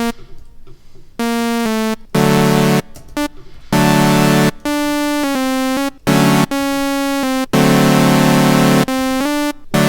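Serum software synthesizer playing a bright, buzzy patch: a line of held notes with short gaps between them, the pitch stepping up and down from note to note.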